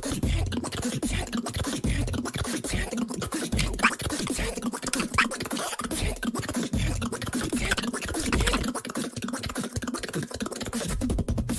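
Solo beatbox performance into a microphone: a fast, continuous stream of mouth-made drum sounds, with sharp snare and click strokes and deep bass pulses that recur throughout.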